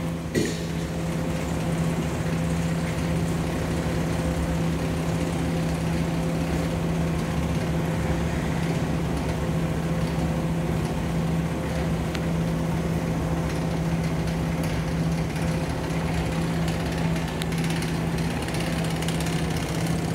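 Foundry sand machine running steadily: a constant motor hum over an even mechanical rumble and hiss. A single knock sounds just after the start.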